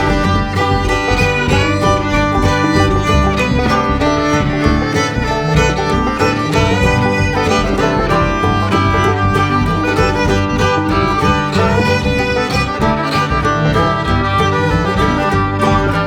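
Background music led by a fiddle, with a plucked guitar or banjo keeping a steady beat, in a bluegrass or country style.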